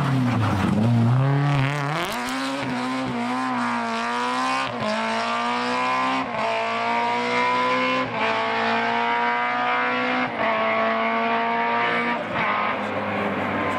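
Prodrive BMW M3 E30 rally car's four-cylinder engine under hard acceleration: its pitch falls as it goes by, then climbs again and again as the car pulls away up through the gears, with an upshift about every two seconds.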